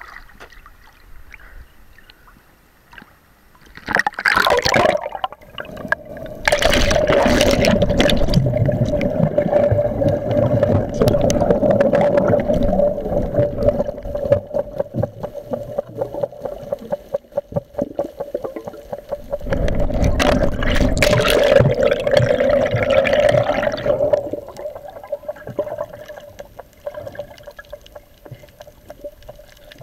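Water gurgling and sloshing against a camera as it goes underwater. It gets loud about four seconds in, stays loud for some twenty seconds, then dies down to faint underwater noise.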